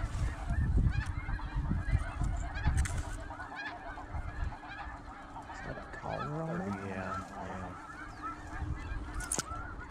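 Many snow geese calling at once, a dense chorus of overlapping high yelps. There is a low rumble in the first few seconds.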